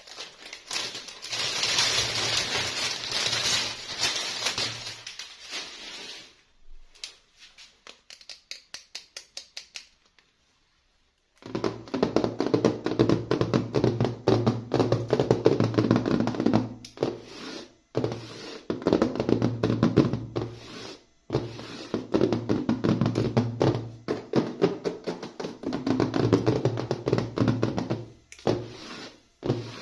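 Crinkling and rustling of plastic packaging being opened, then a run of light clicks and taps. After a brief dropout, music with a drum beat comes in and continues, with tapping over it.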